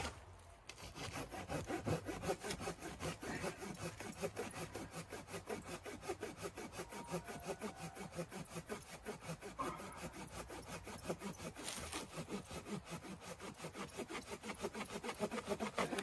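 Hand saw cutting through a dry dead branch, in quick, steady back-and-forth strokes, about three a second.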